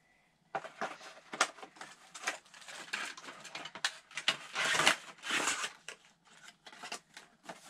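Packaging being handled: plastic and cardboard crinkling and rustling in a dense crackle of small clicks, starting about half a second in.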